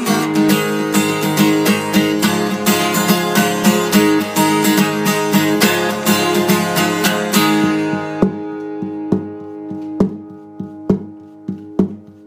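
Acoustic guitar strumming an instrumental break. About eight seconds in it thins to quieter single strokes, about one a second.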